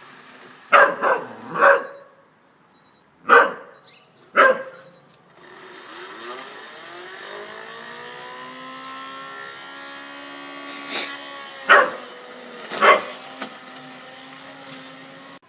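Whippet barking in short sharp barks, about five in the first five seconds and a few more near the end, at a robotic lawn mower it is afraid of. From about five seconds in the mower's motor hums steadily, its pitch sliding up and down as it moves.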